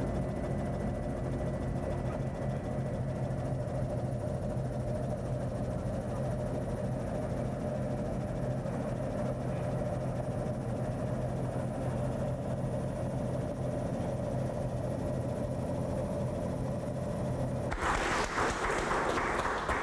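Steady drone of an aircraft's engine, heard from on board during a low flight, holding a constant pitch. Near the end it cuts abruptly to the louder murmur of a crowded room.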